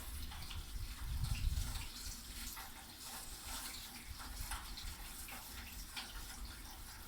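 Rain falling, with many separate drops ticking, and a low rumble that swells about a second in, then eases.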